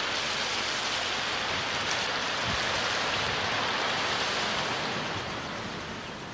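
Steady rushing of shallow river water, easing off a little about five seconds in.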